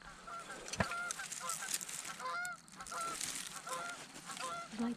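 A flock of geese honking, many short calls overlapping one another.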